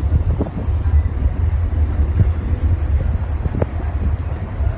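Wind buffeting the microphone aboard a passenger ship at sea: a loud, steady low rumble.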